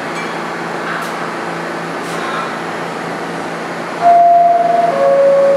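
R46 subway train standing in the station with a steady hum. About four seconds in, the two-tone door-closing chime sounds, a higher tone stepping down to a lower one.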